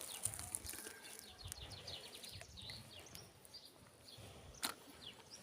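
Faint birdsong outdoors: small birds chirping in short, quick notes, with one sharp click about four and a half seconds in.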